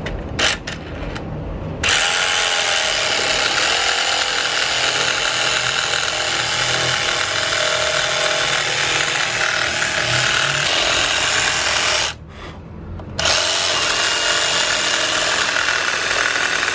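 Cordless reciprocating saw cutting through a pine board. Its blade runs steadily from about two seconds in, stops for about a second after ten seconds of cutting, then cuts again.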